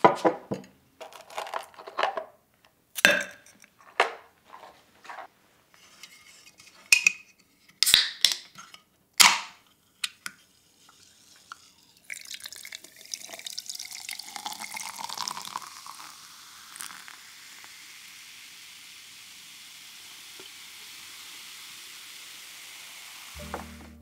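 Sharp clinks and knocks of ice cubes going into a glass. About halfway through, sparkling water is poured over the ice and then keeps fizzing with a steady hiss.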